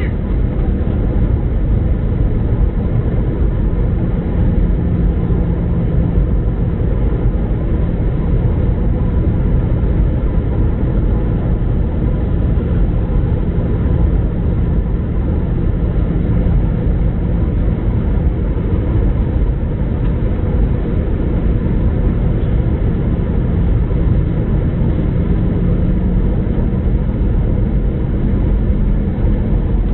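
Steady cabin noise of an Airbus A319 in descent: a loud, even drone of engines and airflow with a constant low hum.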